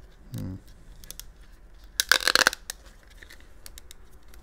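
Fabric top layer of a cloth mouse pad being ripped from its rubber base: one sharp, half-second tearing rasp about two seconds in, with light handling clicks around it.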